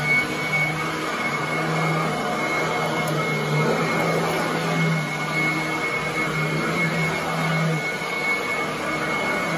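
Royal commercial upright vacuum cleaner running on carpet: a steady rush of air with a constant high whine over it, and a lower hum that drops in and out as it is pushed back and forth.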